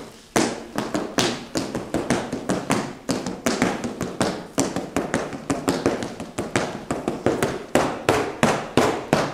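Sharp rhythmic hand claps and slaps, about three a second, keeping time for a folk dance.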